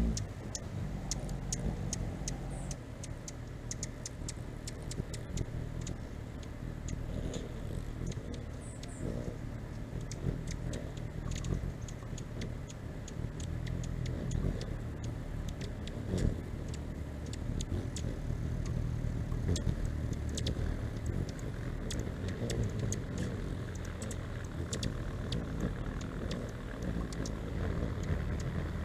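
Hummingbirds at a feeder giving short, sharp chip calls, many scattered ticks that are densest in the first few seconds, over a low steady hum.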